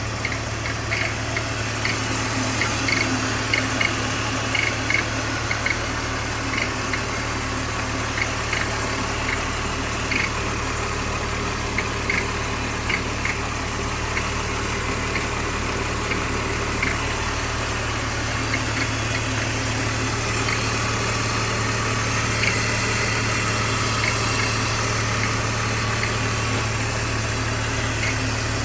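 BMW engine idling steadily, with irregular sharp ticks or clicks over the running, more frequent in the first half: the unexplained noise the engine is making.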